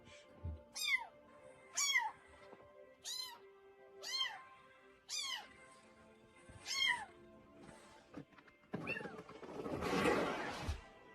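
Domestic cat meowing six times, short meows that rise and fall in pitch, about a second apart. Near the end comes a louder noisy rush lasting about two seconds.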